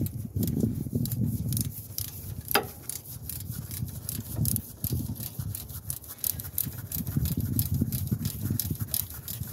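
Ratchet wrench clicking in quick, uneven runs as the brake hose bracket bolt is tightened, with a sharper click about two and a half seconds in. Underneath is the dull rubbing and knocking of gloved hands and the tool against the suspension parts.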